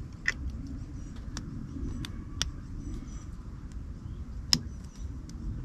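Small sharp plastic clicks and taps, about five, the loudest about four and a half seconds in, as a new angel-eye ring marker for a BMW E60 headlight is handled at its wiring plug. A low steady rumble lies under them.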